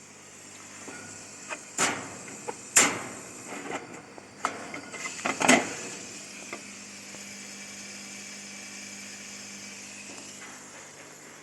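Steady hum of the running laser machine and water chiller, with a burst of sharp knocks and clacks in the first half, two of them loudest, like panels or a lid being handled. After that the hum settles, with a faint held tone over it.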